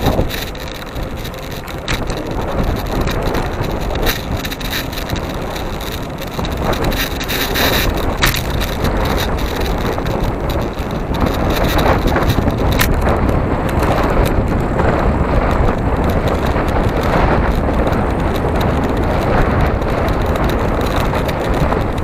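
Wind rushing over the microphone of a camera on a moving vehicle, mixed with tyre and road rumble: a steady noise with no clear engine note, broken by a few sharp ticks.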